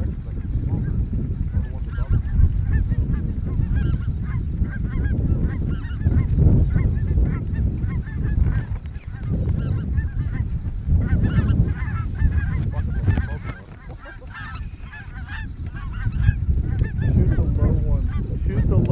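A large flock of snow geese calling, a dense, overlapping chorus of high, yelping honks. A strong, uneven low rumble of wind on the microphone lies under the calls.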